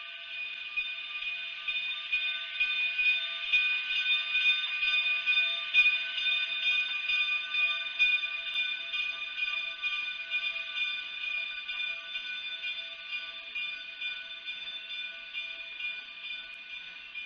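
Narrow-gauge K-36 2-8-2 steam locomotive and its passenger coaches rolling slowly past, heard thin and tinny through a webcam microphone. A rushing, clattering noise swells as the engine passes close, loudest about six to eight seconds in, then eases as the coaches follow. A few steady high tones run underneath.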